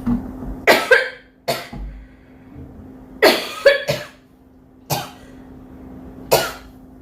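A girl coughing repeatedly: about seven short, dry coughs, some coming in quick pairs, a second or two apart.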